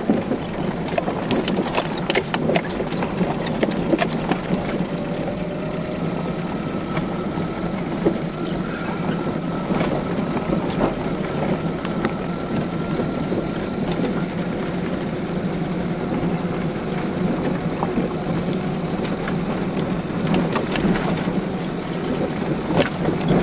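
Car driving over a rough, potholed gravel road, heard from inside the cabin: a steady road and tyre rumble with frequent small clicks and knocks from gravel and the bumps. A faint steady whine runs for several seconds midway.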